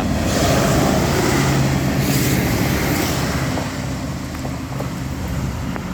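Diesel passenger railcar passing close at speed: engine drone under a loud rush of wheel and rail noise. It is loudest over the first few seconds and eases off as the train moves away.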